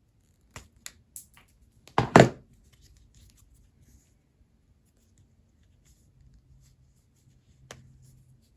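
Knipex nippers working under a leather rivet's head: a few light clicks, then a loud double snap about two seconds in as the rivet head pops free, and one more click near the end.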